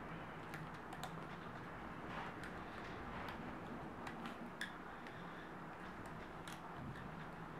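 Faint, irregular clicks and taps of a hook against the pegs of a plastic rubber-band loom as bands are pushed down and looped, over a steady low room hum.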